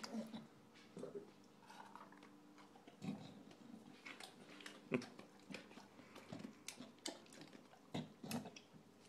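English bulldog eating noisily from a steel bowl: irregular chewing, licking and sharp clicks, with short breathy bursts in between.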